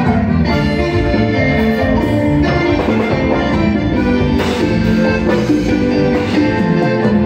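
Live band playing an instrumental passage, with electric guitar, keyboard and percussion over a steady beat and no singing.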